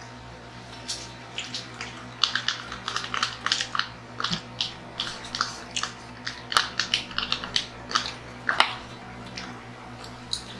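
Eating sounds at a table: chewing, with irregular small clicks and scrapes of a plastic fork and a plastic dressing cup being handled over salad. A steady low hum runs underneath.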